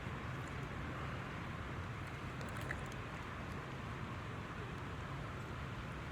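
Steady outdoor background noise with a low hum running under it, and a few faint clicks.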